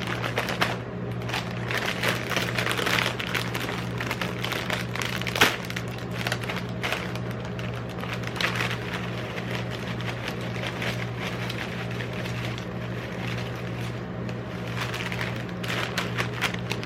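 Metal spatulas chopping and scraping on a rolled-ice-cream cold plate, crushing Lay's potato chips into the cream, with frequent sharp taps and crunching over a steady low hum.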